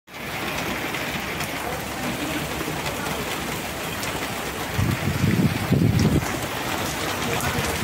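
Heavy rain falling, a steady even hiss. Two brief low rumbles come about five and six seconds in.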